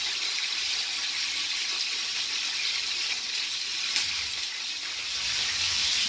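Oil sizzling steadily in a frying pan, with one light knock about four seconds in.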